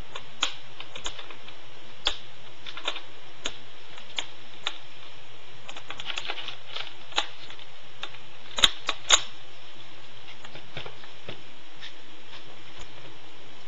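Scattered light plastic clicks and taps as a netbook is handled: the battery slotted into its bay and the lid opened, with two sharper clicks close together about two-thirds of the way through, over a low steady hum.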